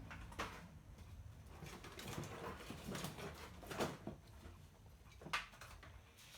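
Faint bench handling noises: a few light clicks and knocks, with soft scraping in between, as equipment and wiring are moved about.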